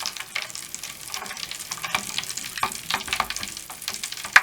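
Mr Bubble Magic Bath Crackles popping, snapping and fizzing in water and bath foam: a fast, irregular crackle over a hiss, with one sharper snap near the end.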